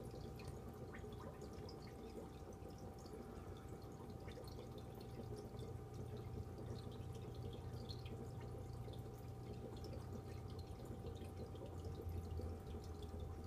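Aquarium filter running: faint water trickling and dripping, with many small scattered drips over a steady low pump hum.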